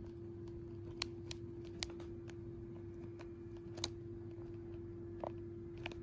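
Scattered sharp clicks from a cockatiel right at the camera, about seven over several seconds, over a steady low hum.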